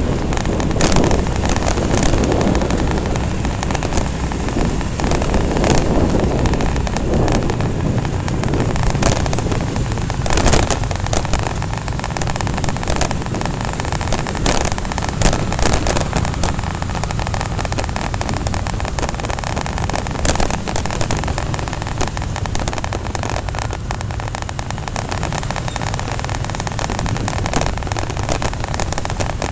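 Riding noise on a moving Honda Revo motorcycle: wind rushing over the microphone over the engine and passing traffic, with a few brief buffets.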